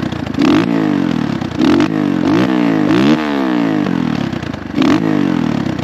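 Dirt bike engines revving, the pitch rising and falling again and again as the throttle opens and closes.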